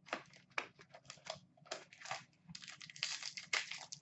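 Hands opening a trading-card box and taking out its wrapped pack: a run of short scrapes and clicks from the box, turning into denser crinkling from about two and a half seconds in as the shiny wrapper is handled.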